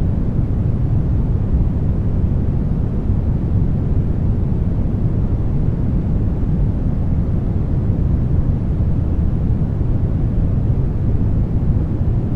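Brown noise: a steady, deep rushing hiss with its weight in the low end, unchanging throughout.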